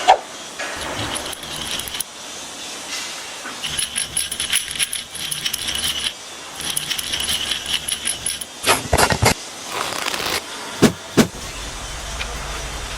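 Irregular metallic clinking and rattling, dense between about four and eight and a half seconds in, with a few sharp clicks around nine and eleven seconds in.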